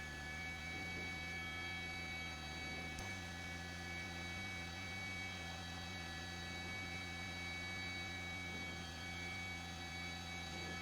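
Helicopter noise heard through the intercom audio: a steady hum with several high, even whining tones and a faint tick about three seconds in.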